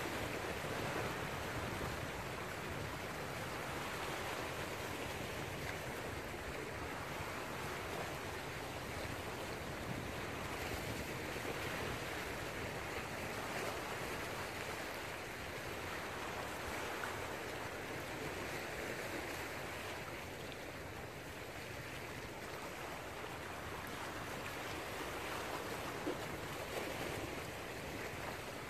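Small sea waves washing and splashing over shoreline rocks, a steady wash of surf. A single short tick sounds near the end.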